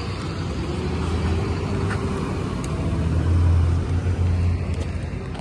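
Motor vehicle engine running, a low hum that swells to a peak about three and a half seconds in and then eases off, as a passing car would.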